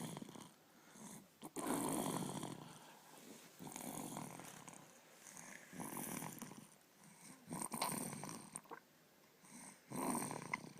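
Heavy, rasping snoring from a sleeper, one snore about every two seconds with short quiet gaps between breaths.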